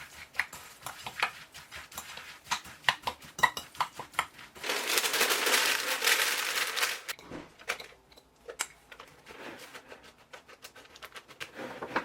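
A spoon clinking and scraping against a bowl as eggs are mixed into a mixture of seeds, oats and dates, with a stretch of dense crackling and rustling for about two seconds in the middle.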